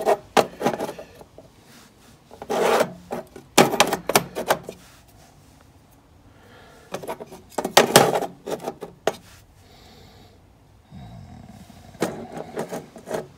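Stepper driver modules being slid and set down by hand inside a controller case: bursts of scraping and rubbing with light knocks, coming in a few clusters a few seconds apart.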